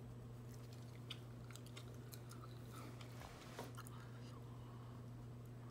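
Faint, scattered small clicks and rustles from an eyeshadow brush and fingers working on the eyelid close to a phone's microphone, over a steady low hum.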